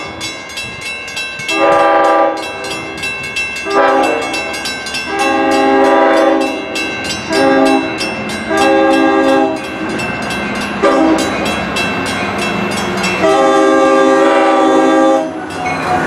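Long Island Rail Road train sounding its multi-note horn in a series of long and short blasts, the longest near the end, over the fast, even clickety-clack of its wheels passing over rail joints.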